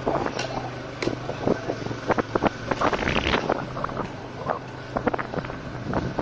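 Motorcycle engine running at low speed with a steady low hum, wind buffeting the microphone, and frequent short clicks and knocks.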